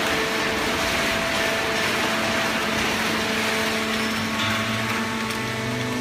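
Fully automatic horizontal hydraulic cardboard baler and its chain feed conveyor running: a steady mechanical whir and hiss with a few held tones, and a low hum joining about four and a half seconds in.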